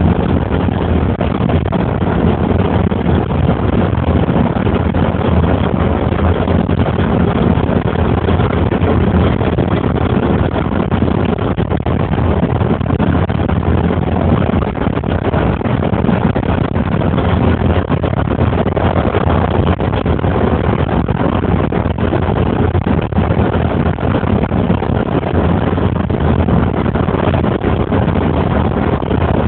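Steady rumble of a moving car heard from inside: engine and tyre-on-road noise, even throughout, with no distinct events.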